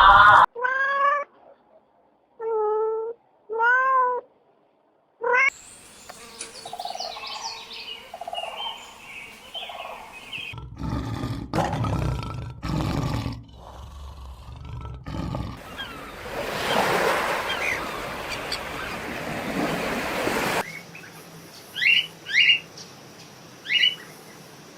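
Animal calls: about four short, high whining calls that rise and fall, then a stretch of mixed, noisier animal sounds, ending with a few short sharp yelps.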